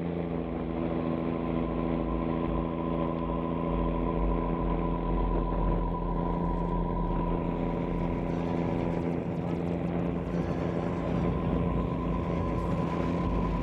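A steady engine drone, unchanging in pitch, with a constant high whine above it.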